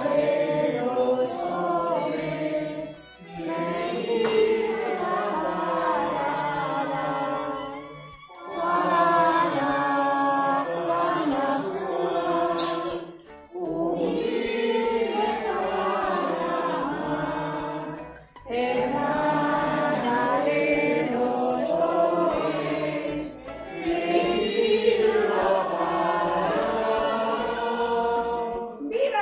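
A group of voices singing together, a choral song in phrases of about five seconds with short pauses between them.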